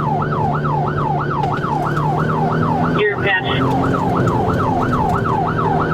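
Police car siren in its fast yelp mode, sweeping up and down about three times a second over a steady low hum, briefly broken about halfway through by a short higher-pitched tone.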